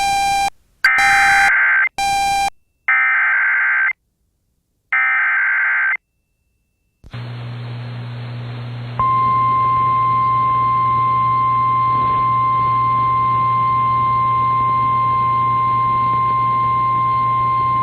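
NOAA Weather Radio emergency alert for a severe thunderstorm warning. It opens with three short, buzzy SAME digital header bursts about a second apart, then a moment of radio static with a low hum, then the steady 1050 Hz weather-radio warning alarm tone held for about nine seconds.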